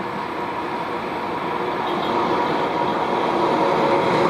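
Deutsche Bahn ICE high-speed train approaching slowly, power car leading: steady running noise with a fixed hum that grows gradually louder as it comes near.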